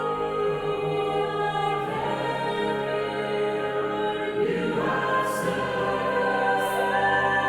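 Background music: a choir singing slow, sustained chords that change every couple of seconds.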